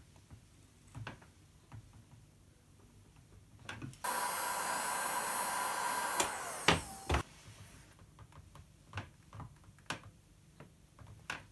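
Electric heat gun blowing steadily with a faint whine for about two seconds, heating a clear plastic piece to soften it for bending, then switched off. Light knocks and taps of a wooden block pressing the plastic against a wooden jig before and after, with two sharper knocks just after the heat gun stops.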